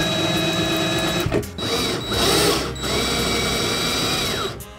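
Cordless drill/driver driving screws, its motor whining in three short runs. The last and longest run winds down in pitch near the end as the trigger is let go.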